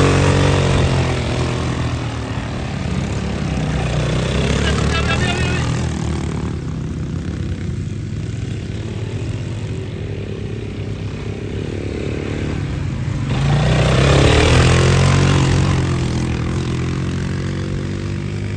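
ATV (quad bike) engine running as it is ridden, revving up near the start and again about two-thirds of the way through, easing back between.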